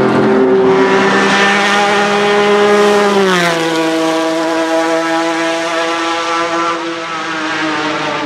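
Ferrari Dino 246 V6 of a 1975 Lancia Stratos Gr.4 rally car running hard at high revs. Its engine note drops in pitch about three seconds in, then holds, easing slightly lower and fading a little.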